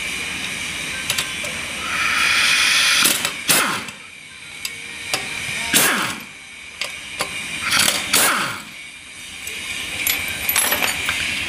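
Pneumatic impact wrench hammering in a run of short bursts between about two and nine seconds in, loosening the bolts that hold the wheel bearing hub to a Mercedes E-Class steering knuckle.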